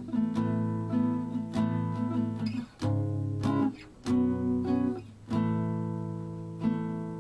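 Background music: strummed acoustic guitar playing steady chords.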